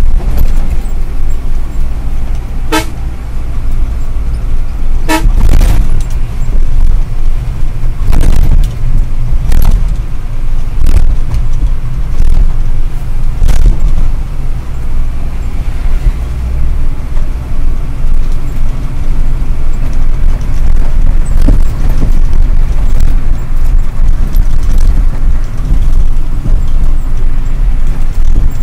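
Ashok Leyland 1613 truck's diesel engine running under way, heard from inside the cab as a loud, steady low drone. Two short horn toots come about three and five seconds in, and a few knocks follow a few seconds later.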